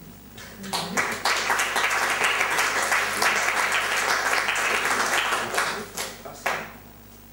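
Audience applauding, swelling up about a second in, holding for about five seconds, then dying away, with a last clap near the end.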